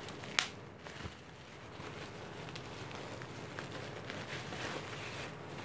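Plastic bubble wrap rustling and crinkling as it is handled and slid off a boxed device, with one sharp click about half a second in.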